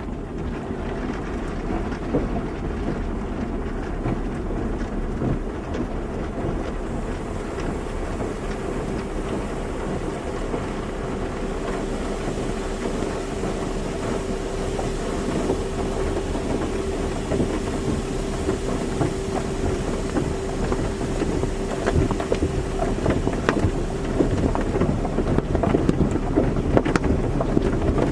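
Automatic car wash running: a steady rush of water spray and machinery, with a steady hum from about a third of the way in until near the end. It grows louder near the end, with spattering.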